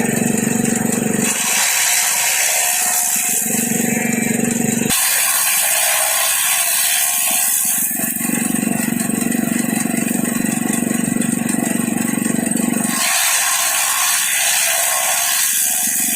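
Engine-driven homemade chaff cutter (grass chopping machine) running continuously, its sound switching back and forth several times between a stretch with a strong low hum and a stretch with more high hiss.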